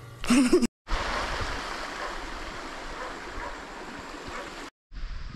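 A brief voice right at the start, then a steady rush of flowing water that starts abruptly about a second in and cuts off shortly before the end.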